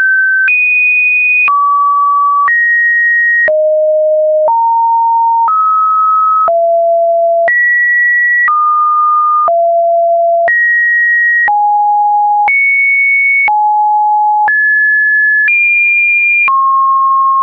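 A sequence of computer-generated pure sine-wave test tones, each held steady for about one second before jumping to a new, apparently random pitch, some fairly low and some high. A faint click marks each change of tone.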